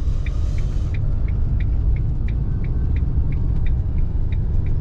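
Camper van engine and tyre rumble heard from inside the cab while driving slowly, with a light, regular ticking about three times a second.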